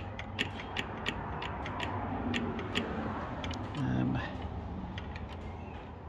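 Car door latch and hinge mechanism creaking, with irregular sharp clicks, as the door is worked by hand.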